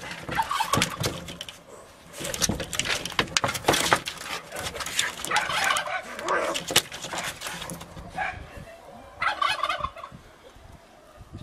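Two domestic cats fighting, yowling and screeching in dense, ragged bursts, then going quieter for about two seconds before one more outburst near the end.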